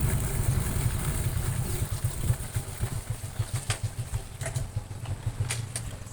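Motor vehicle engine running with a low, pulsing rumble that fades as it moves away, with a few light clicks near the end.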